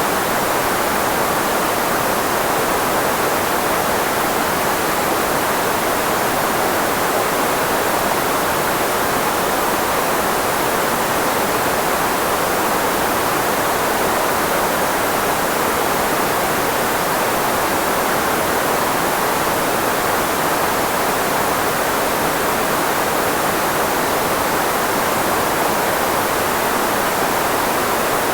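Steady filtered white noise, a constant hiss with most of its energy in the range of the human voice and little bass, used as a speech blocker.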